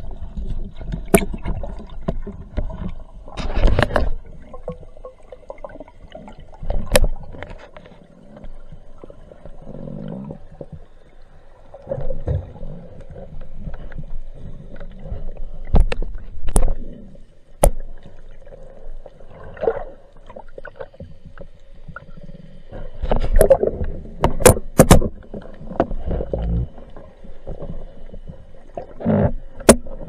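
Underwater sound picked up through a camera's waterproof housing: a muffled rumble of moving water with a faint steady hum. Irregular sharp clicks and knocks, several of them loud, come in scattered clusters.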